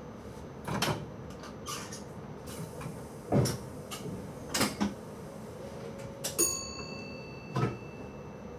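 Several separate knocks and clunks inside a stopped electric train's cab, over its steady hum. About six seconds in comes a click, then a short, steady high beep.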